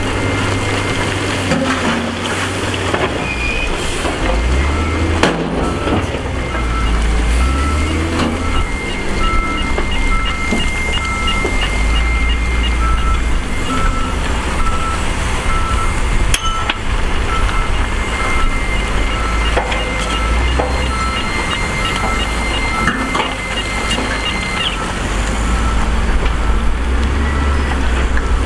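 Heavy diesel dump truck engines running, swelling and easing, as tipper beds are raised to dump rock. A regular warning beep repeats through the middle of the stretch and stops a few seconds before the end.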